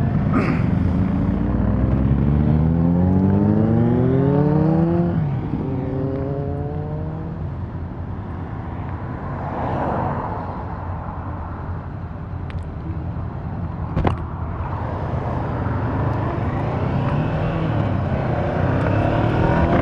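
Honda CB500X parallel-twin engine pulling away and accelerating, its pitch rising steadily, dropping at a gear change about five seconds in, then rising again before settling, with wind noise over the microphone. A car passes close by about halfway through, and there is a single sharp click a little later.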